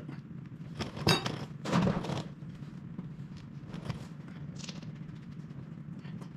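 A metal spanner clinks once with a short ring about a second in, among scuffs, shuffling and small knocks as a mechanic shifts on a wheeled creeper under a forage harvester, with a low steady hum underneath.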